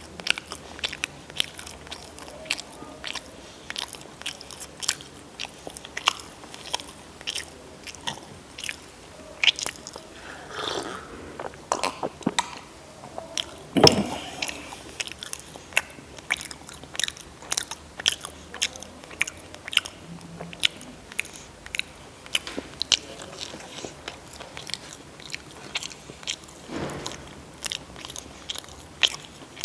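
Close-miked chewing of crunchy food: a steady, irregular run of sharp crunches, several a second, with one louder bite about 14 seconds in.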